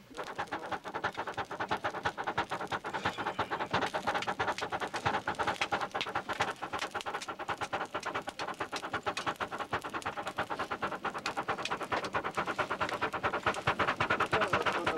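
Hand-worked pottery bowl bellows pumped in a quick, even rhythm, each stroke a puff of air. The blast is driven through pottery nozzles into a forge's firebox to heat a crucible of iron fragments.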